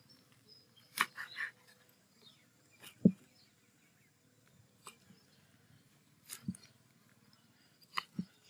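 Large kitchen knife chopping through sheets of dried tofu skin onto a wooden chopping board: separate sharp chops with a dull knock of the board, every second or two, the loudest about three seconds in.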